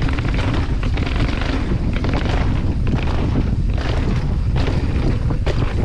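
Wind buffeting the helmet-mounted camera's microphone as a hardtail mountain bike rolls fast over a paved slab path, with steady tyre rumble and irregular knocks and rattles from the bike over the slab joints.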